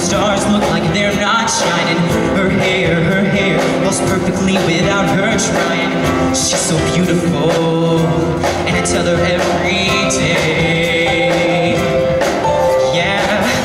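Live show choir performance: a male soloist singing over the band, with the choir and instruments behind him.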